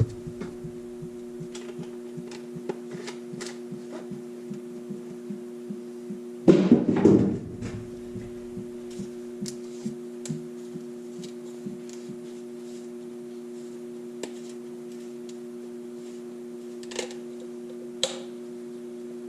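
Steady mechanical-electrical hum of two level tones, with scattered faint ticks and taps. About six and a half seconds in comes a louder clatter lasting about a second, and near the end two sharp clicks.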